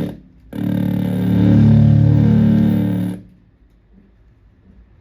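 Electric guitar (Gibson Les Paul in Drop D) through a silicon Fuzz Face fuzz pedal with a bias control: a fuzzed note fades out at the start, then a long sustained fuzz note rings for about two and a half seconds and cuts off abruptly, leaving faint hiss.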